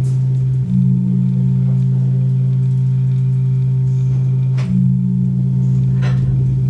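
Loud, steady low electronic drone of pure, sine-like tones, two pitches held together. The upper tone dips and comes back in about half a second in and again near five seconds.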